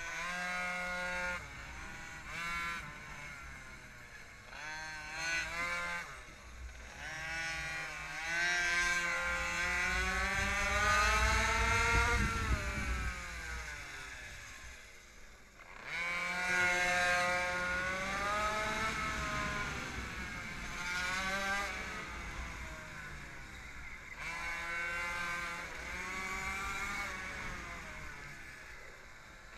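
Minimoto's small two-stroke engine revving up along each straight and falling away into the corners, again and again, the longest climb about eight to twelve seconds in. Wind rumbles on the microphone underneath.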